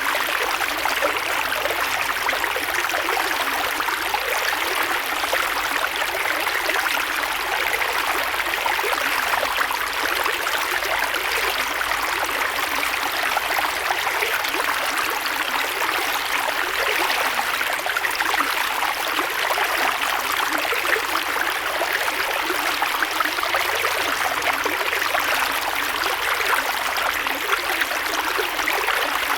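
Creek water flowing and babbling over rocks, a steady rushing with fine trickling splashes and no breaks.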